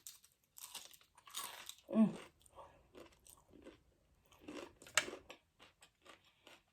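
Close-up chewing and biting of crunchy fried food, in irregular crisp crunches with pauses between them; the sharpest crunch comes about five seconds in.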